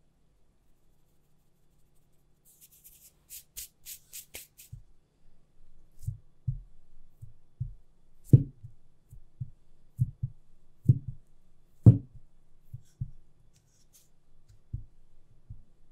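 A wooden rolling pin is pressed and knocked down onto a firm slab of sablé tart dough on a silicone baking mat, making a series of dull, low thuds at uneven intervals; the loudest three come near the middle. Before that, a few seconds in, there is a brief run of light, crisp ticks.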